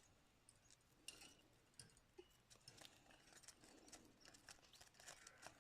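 Near silence with faint, scattered clicks and scratches from about a second in, typical of a budgie chick shuffling about on its feet.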